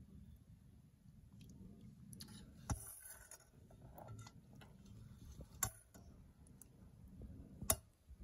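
Metal ladle stirring and lifting thick bean stew in a pot, with soft wet squelching and three sharp clicks of the ladle against the pot, the last near the end the loudest.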